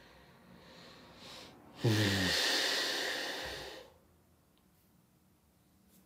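A man lets out a long sigh about two seconds in. It starts with a short falling hum and trails into a breathy exhale that fades after about two seconds.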